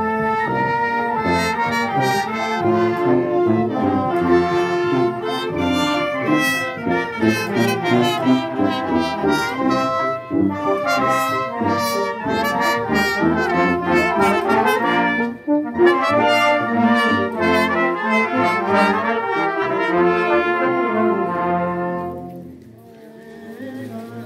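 A Mexican wind band (banda de viento) plays a tune: sousaphones, saxophones, trumpets and trombones over bass drum, snare and cymbal beats. The playing stops about two seconds before the end.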